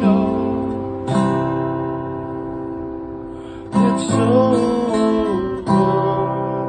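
Acoustic guitar chords strummed and left to ring, with fresh strums about a second in, near four seconds and near six, and a melody line sliding in pitch above them.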